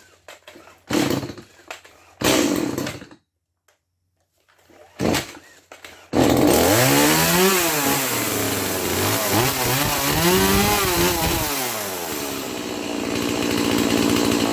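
Stihl MS 180 two-stroke chainsaw being pull-started: a few short pulls, then about six seconds in it catches and runs, revved up and down twice before settling to a steady idle. It starts and runs well on a new spark plug fitted in place of a carbon-fouled one.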